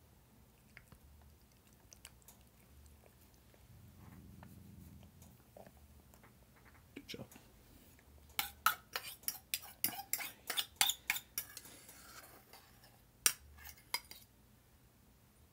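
Metal spoon clinking and scraping as wet cat food is scooped: faint scattered clicks at first, then from about halfway through a fast run of sharp clinks, about four a second, and two more single clinks near the end.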